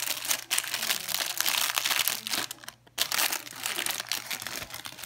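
Clear plastic packaging bag crinkling and rustling as a hand handles and unwraps an electric shaver. The crackling goes on almost without a break, with one short pause just under three seconds in.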